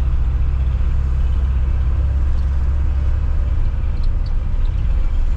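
Hino truck's diesel engine running on the move, heard from inside the cab as a steady low rumble with road noise.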